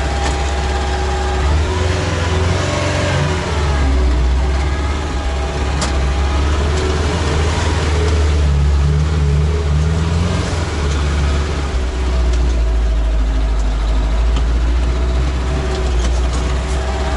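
Engine of a small off-road vehicle running under way, heard from inside the cabin: a steady low drone whose pitch rises and falls a few times as the throttle is worked.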